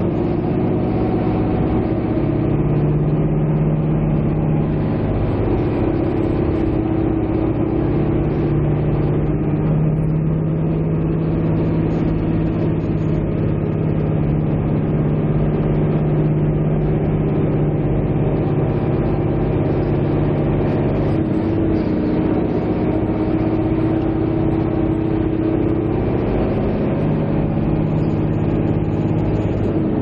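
A motor vehicle running steadily, heard as a continuous engine and road drone with a low hum that holds level for long stretches and shifts slightly in pitch now and then.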